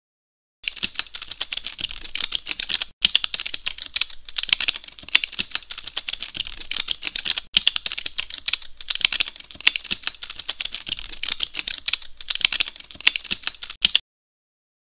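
Rapid computer-keyboard typing: a dense run of keystroke clicks that starts about half a second in, breaks off briefly twice, and stops about a second before the end. It is a typing sound effect laid under on-screen text being typed out.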